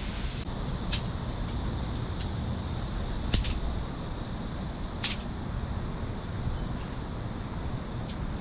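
A few sharp clicks and knocks from handling tent gear while pitching a tent, the loudest a quick double click near the middle, over a steady low rumble of urban background.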